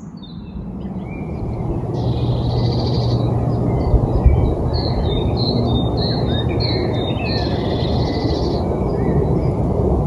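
Small birds chirping and twittering in quick short notes over a steady low rushing noise, like wind on the microphone, with two brief bumps about four seconds in.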